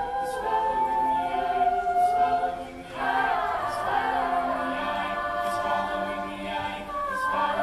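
Mixed choir of male and female voices singing wordless held chords in close harmony, falling away briefly about three seconds in and swelling into a new phrase, over a faint regular beat about every second and a half.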